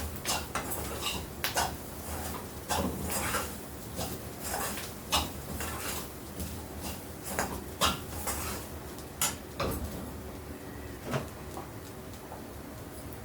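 Spoon clinking and scraping against a pan in irregular strokes, as grated coconut is stirred and sautéed with dry ginger and galangal powder; the strokes thin out near the end.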